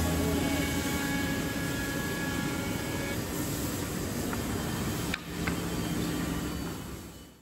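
Wood-working CNC machine running: a steady mechanical hum with held whining tones, fading out near the end.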